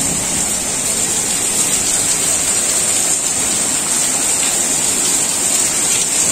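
Heavy rain pouring down in a storm, a loud, steady hiss.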